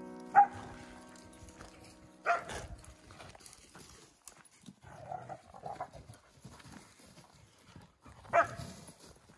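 Two dogs play-fighting: a dog barks sharply three times, about half a second in, around two seconds in and near the end, with quieter vocal sounds between. Piano music dies away over the first two seconds.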